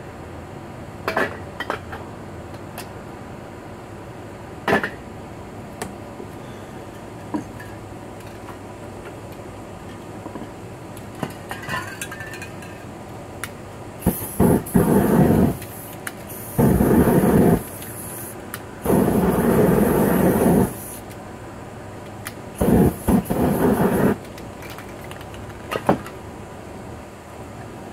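Aerosol spray paint cans hissing in four bursts of one to two seconds in the second half, the spray being flamed over the painting. In the first half there are scattered light clinks and knocks of metal lids and cans being handled.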